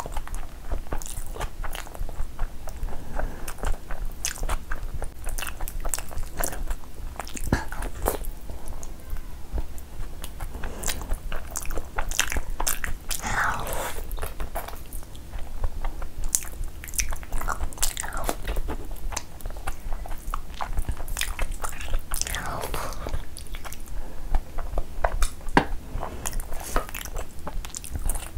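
Close-miked chewing of mutton curry and rice, with many short sharp mouth clicks, and fingers working curry-soaked rice and meat on the plate.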